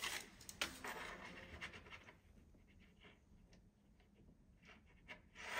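Faint handling of a steel tape measure and pencil against a wall-mounted plastic waste pipe: light clicks and scratching, busier in the first two seconds, quieter after, rising again near the end.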